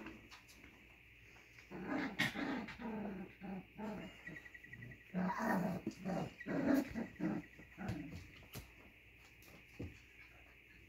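Doodle puppies play-growling as they wrestle, in a run of short growls from about two seconds in to about eight seconds.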